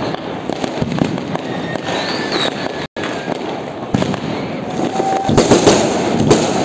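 Diwali fireworks crackling and popping continuously, with many small bursts. Near the end the crackle grows louder and denser as a ground fountain firework (anar) sprays sparks.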